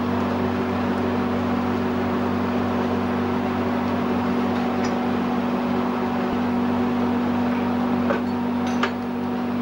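Steady droning hum of foundry machinery, with a few faint clinks about eight and nine seconds in.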